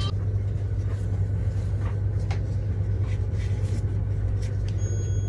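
A steady low hum, with faint soft scrapes and squishes of a gloved hand working flour and water into pizza dough in a glass bowl.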